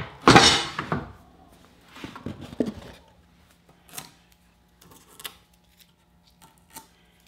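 A brief scraping rattle of the wooden insert being handled on the table saw's cast-iron top, a couple of knocks, then a few faint taps and clicks as fingers press small squares of double-stick tape onto the insert's leveling screws.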